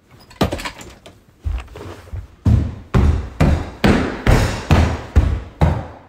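Heavy footsteps thudding on a hardwood floor, a couple of light knocks first, then steady stomping steps at about two a second.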